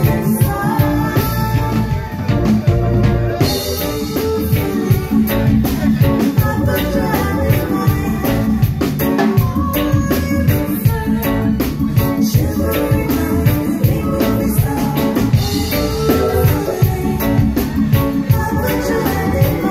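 Live reggae band playing, with a woman singing lead into a microphone over drums, bass and keyboards, at a steady beat.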